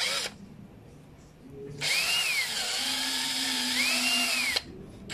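Electric hand drill with a small bit running briefly, then for about three seconds, boring out a blockage; its motor whine dips and comes back up twice as the speed changes.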